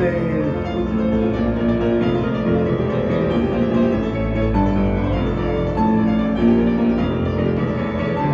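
Grand piano played solo live: a steady run of chords with no singing.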